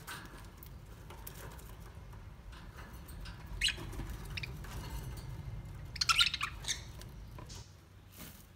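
Ducks giving short squawking calls in two brief clusters, about three and a half and six seconds in, over a low steady rumble that fades near the end.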